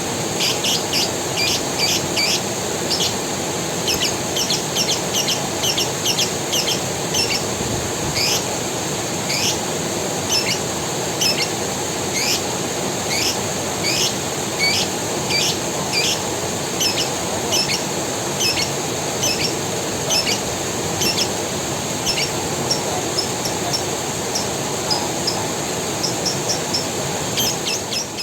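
Forest creek water running steadily, with a bird repeating short, sharp chirps about once or twice a second over a steady high hiss.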